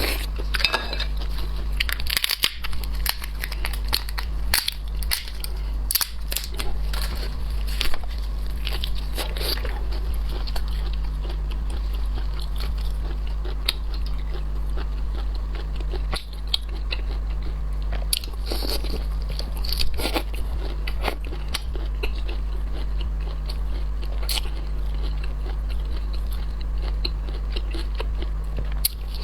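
Close-miked eating of shellfish: crunching, biting and chewing with many sharp clicks and crackles, over a steady low hum.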